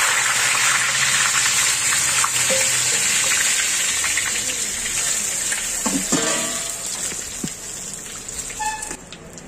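Curry leaves frying in a large iron kadhai of hot oil: a loud, steady sizzle that fades gradually over the last few seconds.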